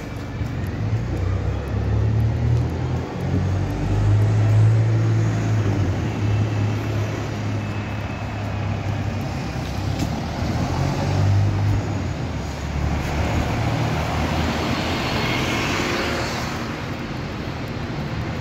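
Street traffic with a bus passing close by: a low engine drone, then a hiss that swells and fades about three-quarters of the way through.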